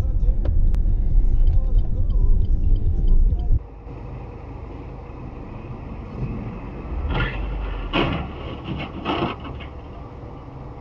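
Car driving, heard through a dashcam: a loud low rumble of engine and road noise that cuts off suddenly about a third of the way in. Quieter traffic noise follows, with three short, loud bursts of noise about two-thirds of the way in.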